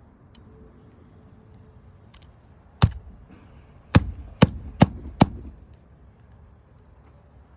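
Nails being driven to fasten a lifted asphalt shingle back down on a roof: one sharp strike, then four more in quick succession about 0.4 s apart.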